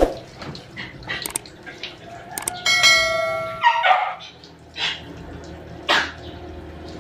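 A bright bell-like chime from a subscribe-button animation rings for about a second, about three seconds in. A wet dog being bathed gives a few short barks, the last about six seconds in.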